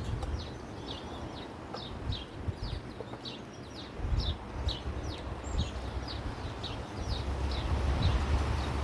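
A small animal giving short, high chip calls over and over, about three a second, each note sliding down in pitch. Under them, wind rumbles on the microphone, growing stronger near the end.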